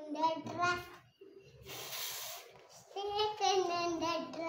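A small girl's voice chanting phonics sounds in a sing-song, broken by a drawn-out hissing "sss" a little before halfway, then more chanting.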